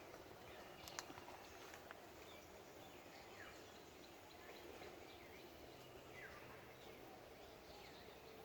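Near silence: faint outdoor background with a bird's short falling chirps every second or two, and a single sharp click about a second in.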